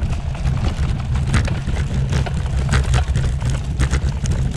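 Bicycle rattling over cobblestones: a constant low rumble broken by frequent, irregular sharp rattles as the wheels hit the stones.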